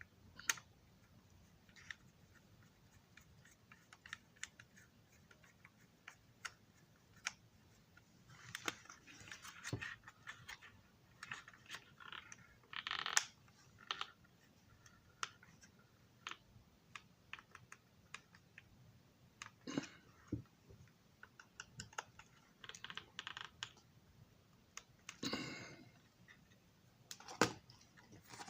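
Scattered light clicks and taps, with a few short clusters of scratchy rattling, as small hard parts are handled and worked on by hand.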